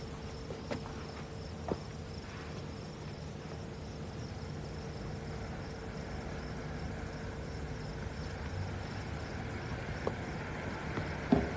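Crickets chirping steadily over a low background hum, with a few light clicks and a sharp knock near the end.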